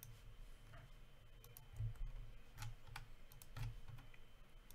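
Faint, irregular typing and clicking on a computer keyboard, with a few soft low thumps.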